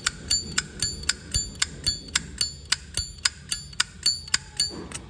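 Lid of a 2003 Zippo lighter being flicked open and snapped shut over and over: sharp metallic clicks, about four a second, each with a short bright ring. The seller calls the sound quite nice, a sign of a lid, hinge and cam in good order.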